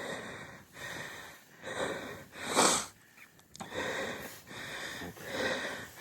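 Heavy, hard breathing of a person out of breath after running, about one breath a second, with one louder breath about two and a half seconds in.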